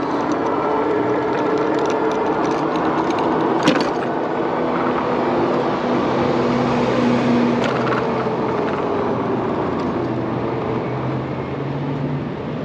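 Street traffic heard from a moving bike: a steady rush of road noise with the humming of vehicle engines slowly shifting in pitch, and a single sharp knock about three and a half seconds in.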